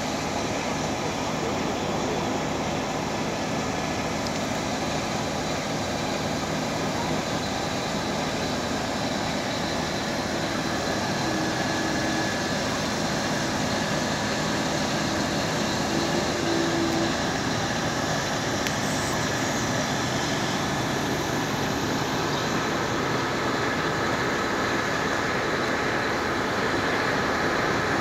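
Large mobile crane's diesel engine running steadily, an even engine drone with faint steady hums and no sudden changes.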